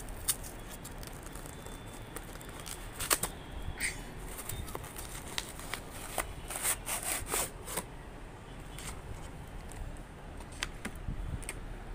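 Cardboard and paper packaging being handled and unpacked by hand: scattered crinkles, rustles and small clicks, busiest about three seconds in and again around six to eight seconds.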